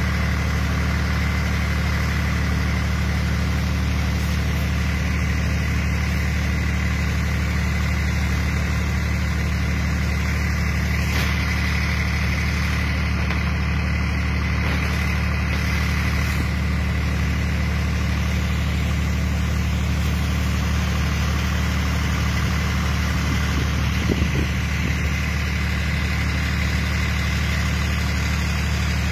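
An engine running steadily at constant speed: a low, even drone with a thin steady whine above it.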